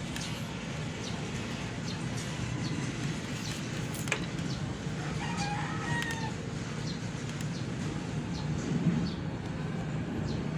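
A rooster crowing once, about five seconds in, over steady background noise with a low hum.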